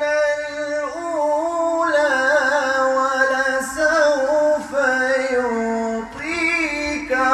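A man reciting the Qur'ān in Arabic in a melodic chanted style, holding long notes with ornamented turns in pitch and a short break about six seconds in.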